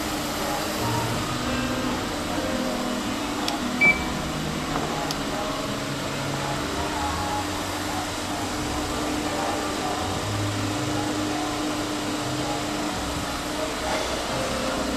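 Steady indoor background hum, like ventilation or air conditioning, with faint scattered voices and one short high beep about four seconds in.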